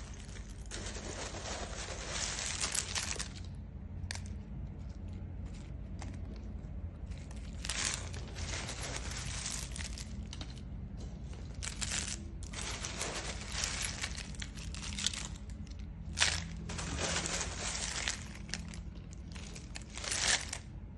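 Dry agarwood (oud) chips rustling as a hand scoops them up and lets them fall back onto the pile, in about half a dozen bursts of one to three seconds each. A steady low hum runs underneath.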